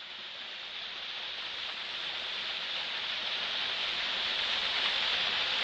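Small waterfall and stream rushing: a steady hiss of falling water that grows gradually louder and cuts off suddenly at the end.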